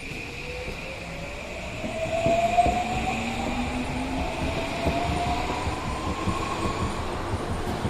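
Toei 5500 series electric train running, its traction motor whine rising steadily in pitch as it gathers speed, with wheels clicking over rail joints. It grows louder about two seconds in.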